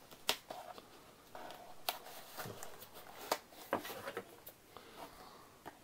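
Scissors snipping through the small plastic ties holding a cardboard toy-box insert: several short, sharp snips spread over a few seconds, with faint cardboard rustling between them.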